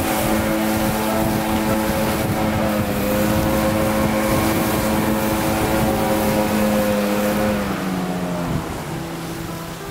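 Small boat motor running under power through river rapids, over the rush of churned water and wind. About eight seconds in, the engine note drops and the sound eases off as the boat reaches calm water.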